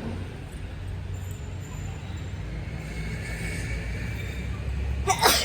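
Steady low rumble of road traffic, then a person's sudden sneeze near the end.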